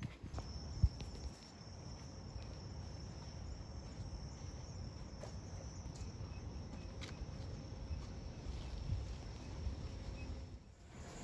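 Insects trilling outdoors in the evening: one high, steady, unbroken note over a low background rumble. A single thump comes about a second in, and the trill fades out just before the end.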